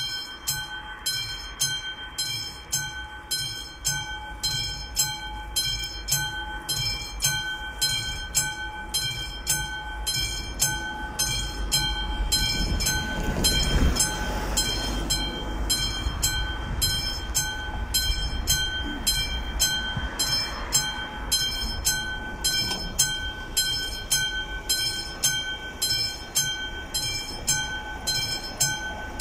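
AŽD 71 level crossing's warning bell ringing steadily, about two strokes a second, as the crossing begins to close ahead of a train. A low rumble swells and fades in the middle.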